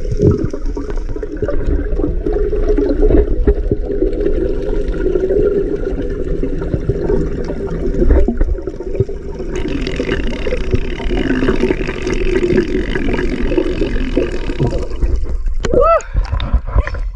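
Muffled, gurgling water noise, the kind a camera picks up in or under water, running throughout and growing brighter and hissier about halfway through. Near the end a short pitched sound sweeps up and falls back.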